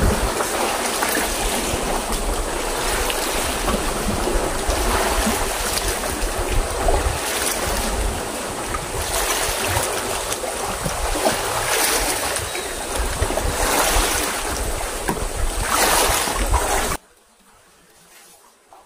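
Wind buffeting the microphone over the rush of water around an outrigger boat under way, in uneven gusts. It cuts off abruptly near the end, leaving a faint hush.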